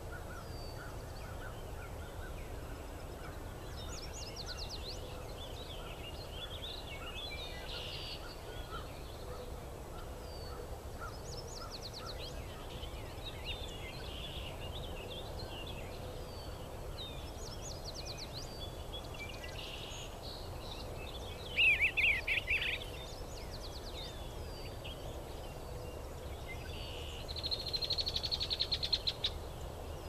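Wild songbirds calling and singing in short phrases over a steady low rumble. The loudest sound is a rapid series of notes about two-thirds of the way through, and another rapid series comes near the end.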